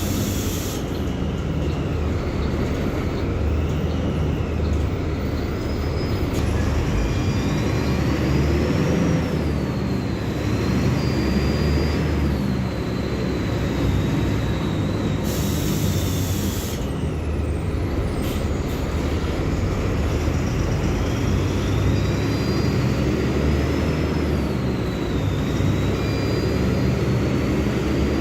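Mercedes-Benz OF-1724L Bluetec 5 bus diesel engine running under way, with a whine that climbs and falls in pitch twice as the bus gathers speed and eases off. A short hiss of air comes about halfway through.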